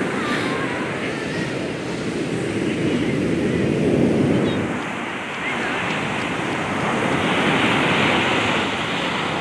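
Ocean surf breaking and washing up the beach, a steady rush that swells about four seconds in and again near the end as waves come in.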